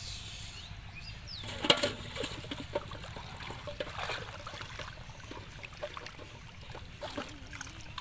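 Shallow pond water splashing and trickling as a person wades through it and moves a water-filled pot, with many small irregular splashes and one sharper, louder splash about two seconds in.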